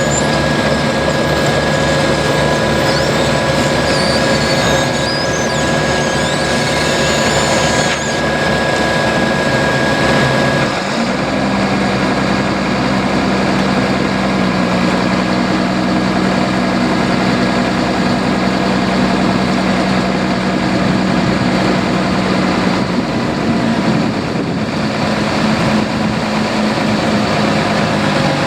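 Diesel engines of asphalt paving machinery running steadily. About ten seconds in, the engine note changes and a steady low hum sets in.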